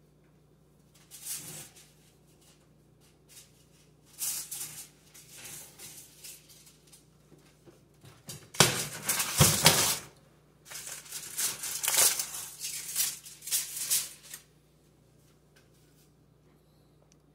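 Aluminium foil crinkling and rustling in several bursts as it is handled and crumpled off a glass baking dish, the loudest burst about halfway through.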